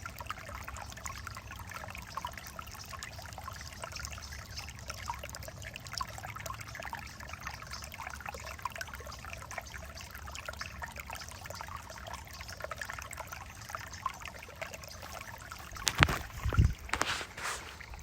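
Creek water trickling and babbling in a steady stream of small splashes. Near the end come two loud thumps about a second apart.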